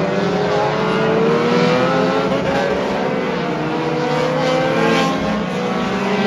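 Several figure-8 race car engines running together on the track, their notes slowly rising and falling as the cars accelerate and pass.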